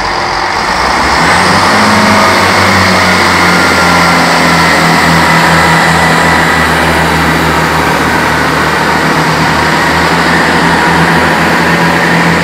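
First Great Western Class 166 'Networker Turbo' diesel multiple unit pulling away under power, its underfloor diesel engines running loud and steady. A thin high whine rises in pitch about a second in.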